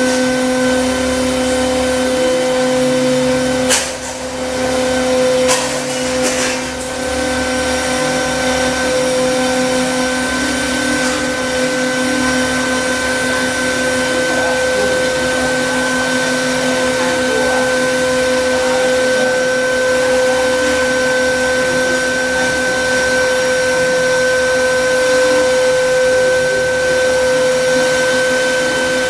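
Air-cooled 3 kW CNC router spindle running with a steady whine over fan noise, with a few sharp clicks about four and six seconds in.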